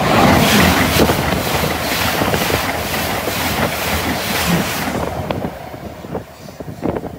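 An LNER Azuma high-speed train passing through the station at speed without stopping: a loud rush of air and wheel noise with a fast, regular clatter from the wheels, fading away after about five seconds as it draws off.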